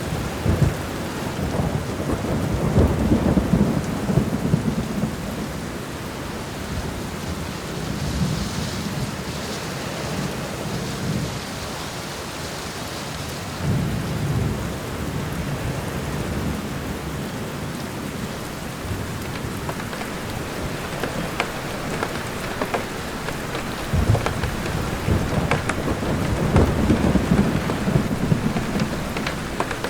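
Steady rain falling in a forest during a thunderstorm, with rolling thunder rumbling in low swells: one early on that builds for a few seconds, another about fourteen seconds in, and a longer one from about twenty-four seconds in. Scattered sharp drips sound over the rain hiss in the second half.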